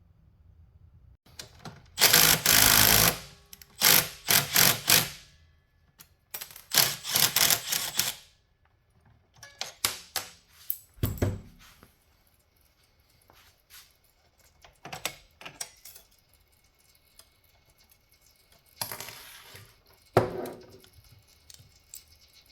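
Intermittent clattering and clicking of hand tools and metal parts being handled while working on a dirt bike, in irregular bursts of about a second with short quiet gaps and a few single knocks.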